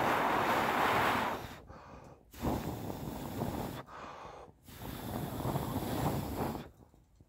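Three long breaths blown into a small stainless-steel wood gas stove to fan its fire, each a rush of air lasting a second or two, with short pauses between them for breath.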